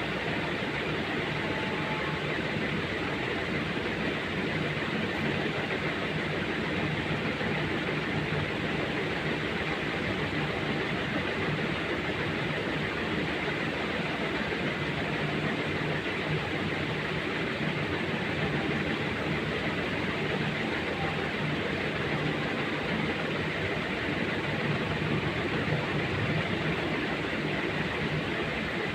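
Steady machine or vehicle running noise, unchanging throughout, with a constant low hum and a faint high tone.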